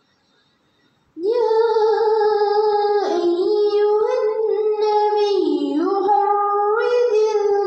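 A girl reciting the Quran in tarannum, the melodic chanted style. After a short silence her voice comes in about a second in with long held notes that step and dip in pitch.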